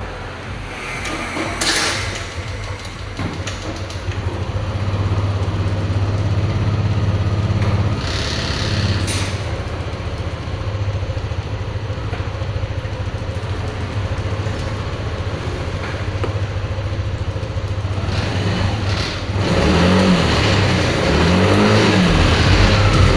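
Yamaha Aerox scooter engine running at idle, then revved up and down a few times near the end. The engine is one that sputters (brebet), which the mechanic traces to a broken coolant-temperature sensor wire.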